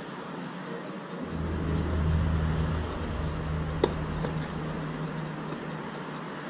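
A tennis racket strikes the ball once, a sharp crack about four seconds in, with a fainter knock just after. Under it a low engine-like hum swells about a second in and fades toward the end.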